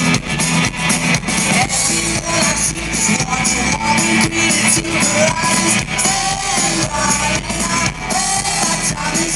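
Live rock band playing an instrumental passage: strummed acoustic guitar with bass and a steady drum beat, heard loud and rough through a phone-type recording in a big outdoor crowd.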